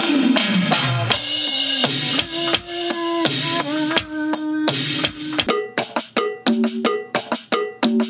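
Drum and percussion samples played on a Roland SPD-SX Pro sampling pad struck with drumsticks: a fast fill of pitched drum hits falling in pitch, then a busy pattern of pitched drum and rim-like strikes, ending in rapid even hits.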